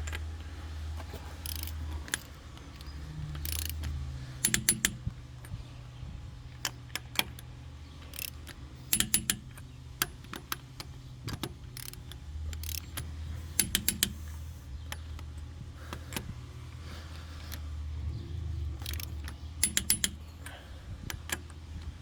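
Sharp metallic clicks and rattles of hand work on a car, coming in quick clusters of three or four every few seconds, over a low steady hum.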